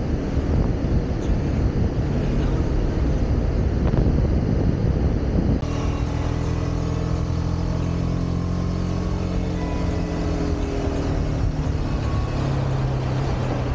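Motorcycle engine running under way, with wind rush. About halfway through the sound changes suddenly to a clearer engine note with less wind, and its pitch slowly drops and then levels off as the bike eases off.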